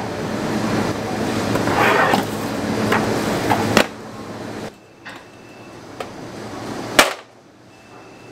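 Metal bread-loaf tins knocking and clanking as they are handled out of a deck oven, over a steady bakery background noise. A sharp knock just before four seconds, after which the background is much quieter, and a second, louder sharp knock about seven seconds in.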